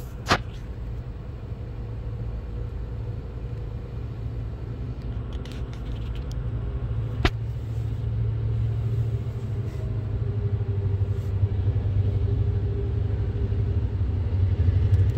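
South Shore Freight diesel locomotives running past with a steady low engine rumble that grows louder as they come alongside, heard from inside a car. Two sharp clicks stand out, one right at the start and one about seven seconds in.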